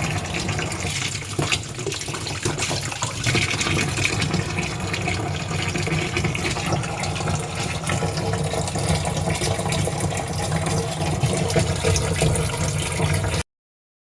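Steady stream of water pouring into the wash tub of a semi-automatic washing machine as it fills. The sound cuts off suddenly near the end.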